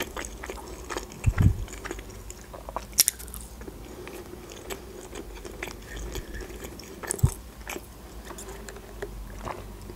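Close-miked chewing of a McDonald's chicken nugget: soft wet mouth sounds with small crunches and clicks, and a couple of louder low knocks. Near the end, a sip through a straw.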